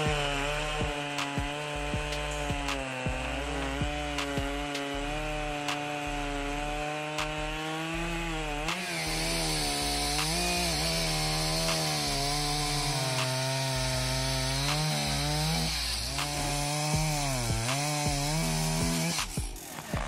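Two-stroke chainsaw running at high revs while cutting wood. Its engine note dips several times under the load of the cut and picks back up. A brighter hiss of the chain in the wood grows louder about nine seconds in.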